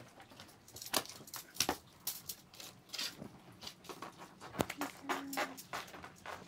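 Scattered soft rustles and small clicks, irregular and a few each second, from a person's sleeve and hand stroking a cat that lies in a corrugated cardboard scratcher bed.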